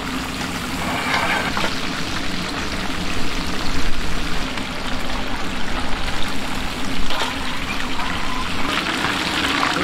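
A steady, fairly loud rushing hiss, with no clear tone or rhythm, swelling slightly midway.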